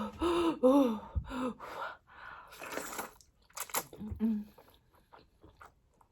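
A woman chewing and crunching spicy food with her mouth close to the microphone, with a few short wordless moans near the start as the heat burns.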